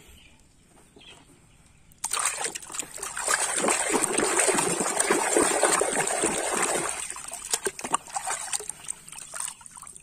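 A hand churning water in a plastic tub, splashing and sloshing. It starts about two seconds in, keeps up for about five seconds, then thins to a few scattered splashes.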